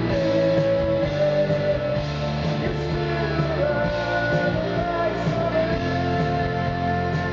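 Rock band playing live: electric guitars, bass and drums under a singer's long held notes that step from one pitch to the next, with the top end dulled.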